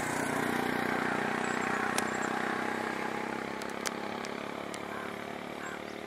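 A motor vehicle's engine running with a steady hum, slowly fading as it moves away. A few faint clicks sound over it.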